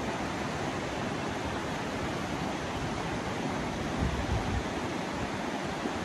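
Ganges River rushing over a rocky bed, a steady hiss of fast, broken water. About four seconds in, a few brief low buffets of wind hit the microphone.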